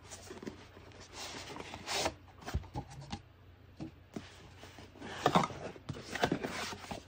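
Cardboard packaging being handled: a card sleeve slid off a cardboard box with a rubbing scrape, then rustling and light knocks as the box is set down and its flap is handled near the end.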